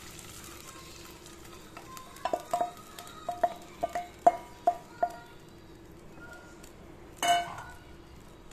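Coconut water thickened with cornflour poured into a hot pan of tender coconut flesh fried in ghee, with a faint sizzle at first. Then a run of about ten light, ringing clinks of kitchenware against the pan, and one louder clink near the end.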